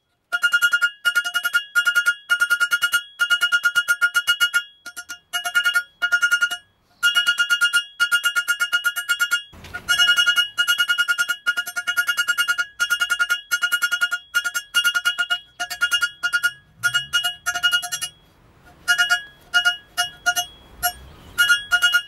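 Hand hammer striking hot steel on a makeshift steel-block anvil in quick runs of blows, each blow ringing with the same clear metallic tone, broken by short pauses. This is the forging of a pair of tongs, drawing out the reins.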